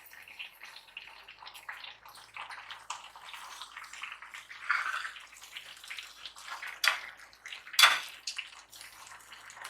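Rice in a sufuria on the stove bubbling and crackling as the last of its cooking water boils off, a sign that the rice is nearly done. Two sharp knocks near the end.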